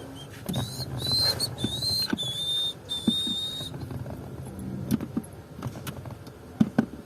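A high whistle, about five held notes in a row lasting roughly three seconds, then stopping. Scattered light clicks and knocks sound under it and after it.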